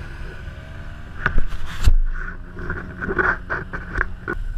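Off-road vehicle engine running steadily at low revs in deep mud, with a run of sharp knocks and clatter starting about a second in.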